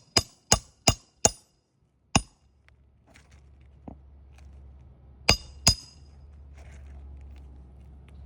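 Hammer blows with a metallic ring, nailing a replacement roof shingle in place: four quick strikes about three a second, a single strike about two seconds in, and a pair of strikes a little past five seconds.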